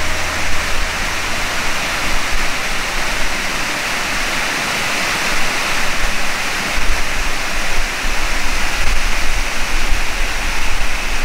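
Stream water rushing steadily over rocks and small cascades.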